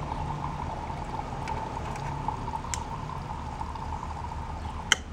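Water-contaminated fuel from a riding mower's tank running steadily out of the carburetor fuel fitting into a ceramic mug, being drained until clean gas comes through. A sharp click near the end.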